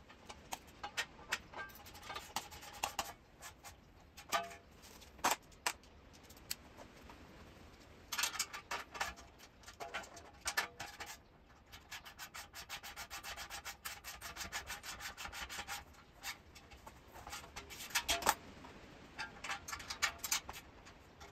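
Hand ratchet clicking in runs of rapid, even ticks as nuts on a metal dolly's wheel-chock frame are tightened, with a few single metal clinks in between.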